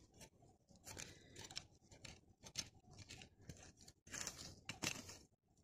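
Small hand trowel digging into dry, stony garden soil: a series of faint, irregular scrapes and crunches, a little louder near the end.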